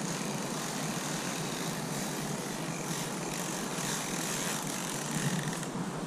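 Steady outdoor background noise: an even hiss and rumble with no distinct events.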